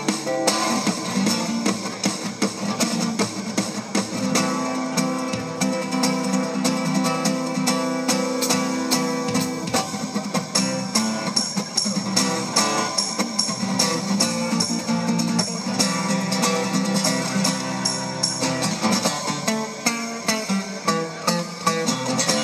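Solo acoustic guitar played live, a continuous stream of quick plucked notes over sustained bass notes.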